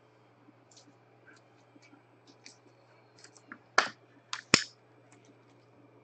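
Light handling sounds of cards and supplies on a table: scattered small taps and scratches, with three sharper clicks close together about four seconds in.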